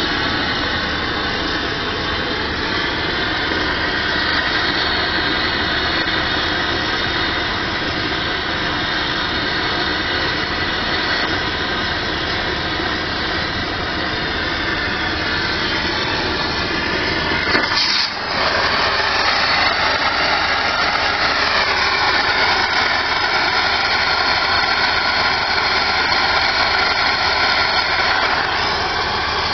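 Rail thermite-welding preheat torch blowing steadily into the mould to heat the rail ends before the pour. About two-thirds of the way through it cuts out for a moment, then comes back with a brighter, higher tone.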